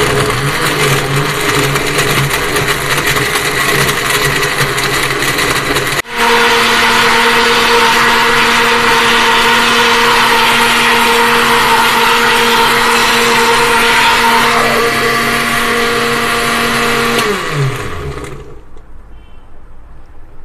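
Electric blender motor running steadily, blending a jug of milk, bananas and dates. There is a brief break about six seconds in, then it runs steady again and winds down with falling pitch near the end.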